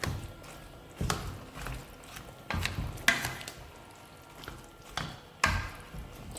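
A spoon stirring okra soup in a cooking pot, knocking and scraping against the pot at irregular intervals.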